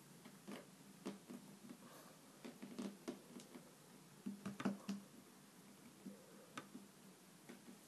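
Faint soft taps and squishes of hands kneading and pressing play dough against a tile surface, with clusters of louder taps about two and a half seconds in and again just before five seconds in, over a faint steady hum.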